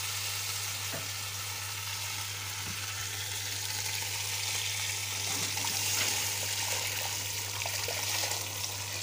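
Hot water poured in a stream into a pot of hot oil holding a stuffed duck: a steady splashing hiss with sizzling.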